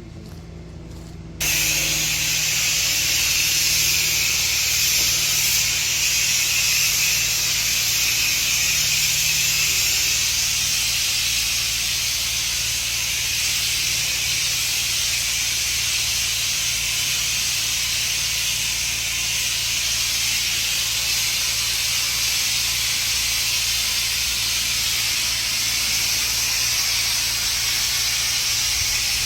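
Steady hiss of a soft-wash spray putting a sodium hypochlorite and soap mix onto a house, starting suddenly about a second and a half in, over the steady low hum of a motor running throughout.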